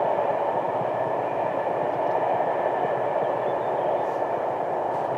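Rolling noise of a passing freight train, a steady rumble that fades slowly as the train moves away from the crossing.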